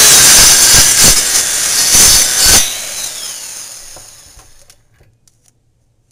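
Circular saw running at full speed, its blade cutting through a coconut's hard shell with uneven surges. About two and a half seconds in the saw is switched off, and its whine falls as the blade spins down to a stop.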